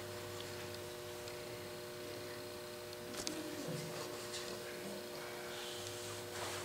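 A steady, faint electrical hum, with a few faint clicks about three seconds in.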